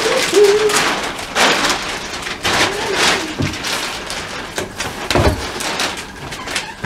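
Laundry and a bag being handled and set down on a twin-tub washing machine's lid: irregular rustles and knocks. A short pitched call sounds near the start.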